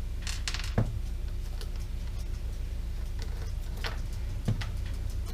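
Light clicks and taps of a Phillips screwdriver and small screws being handled as the screws are taken out, with two louder knocks, about a second in and near the end. A steady low hum runs underneath.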